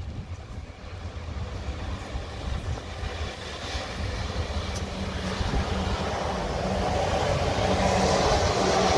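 South Western Railway Siemens Desiro electric multiple unit approaching and drawing close, its running noise growing steadily louder, with a steady hum joining about five and a half seconds in.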